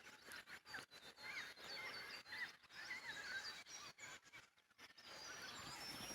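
Faint chorus of small wild birds, many overlapping short chirps and whistles, broken by a few brief dropouts.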